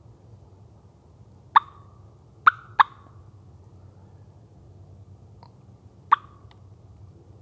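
Turkey diaphragm mouth call blown in short, sharp hen-turkey notes: one, then two in quick succession about a second later, then another near the end. This is loud calling meant to make a tom gobble.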